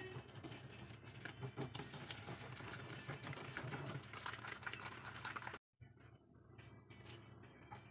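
Rapid whisking of egg yolks and sugar with a white coil whisk, the loops scraping and clicking against the bowl. It cuts off suddenly about five and a half seconds in, leaving only a few faint taps.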